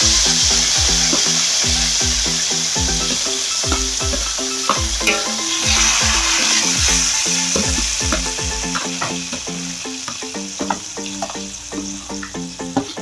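Marinated chicken frying in hot oil in a wok, a steady sizzle that grows fainter over the second half. A background music track with a regular beat plays underneath.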